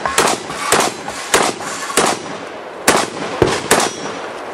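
Saiga 12 semi-automatic 12-gauge shotgun firing a rapid string of about seven shots, roughly half a second to a second apart, each with a short echo.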